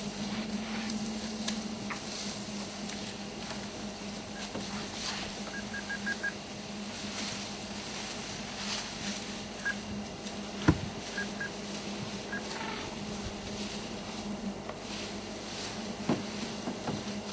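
A game-drive vehicle's engine idles with a steady low hum. Over it come scattered snaps and rustles of brush as elephants move and feed close by, and one sharp crack about ten seconds in.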